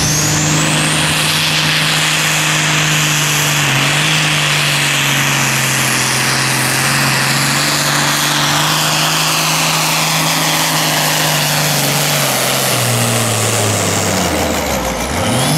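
Turbocharged diesel engine of an IH 1066 pulling tractor running flat out under the load of a pulling sled, holding a steady high note with a high turbo whine above it. Near the end the engine note falls away as the pull slows.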